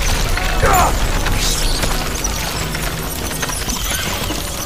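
A swarm of rats squeaking and scurrying, over a steady low rumble, with a man's shout about a second in.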